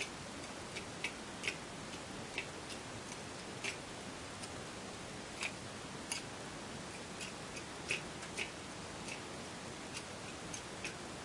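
Light, irregular plastic clicks and taps from a 120 mm case fan being turned over and handled, over a steady background hiss.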